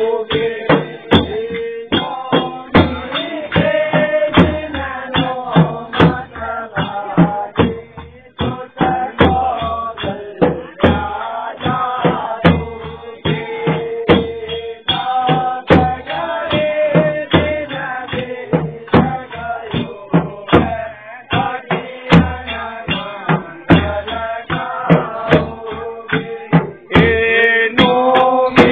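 Holi folk music: a steady drum beat of about three strokes a second under a sung melody.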